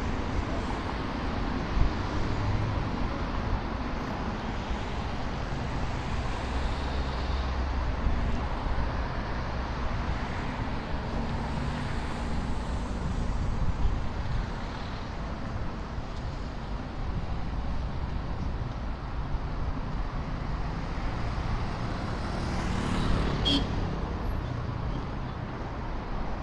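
Busy city street traffic: a steady rumble of cars and trucks passing on a wide avenue, swelling and fading as vehicles go by, with a brief sharp high sound near the end.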